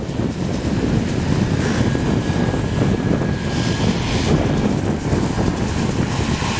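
Tractor engine running steadily, a dense low rumble, with a faint thin whine for a couple of seconds midway.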